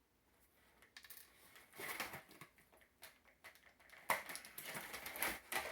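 Small plastic action-figure accessories being handled and pulled from a plastic clamshell tray: a run of crinkles, clicks and light rattles starting about a second in.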